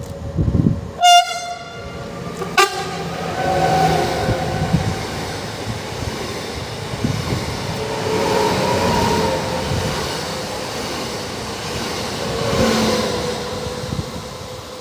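EN78A electric multiple unit giving two short horn toots about a second and a half apart. The train then runs through with steady running noise and a held electric whine.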